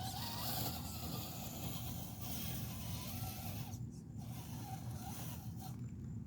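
Mack 6x6 truck running steadily off-road: a low engine rumble, with a wavering squeak over it that fades about four seconds in.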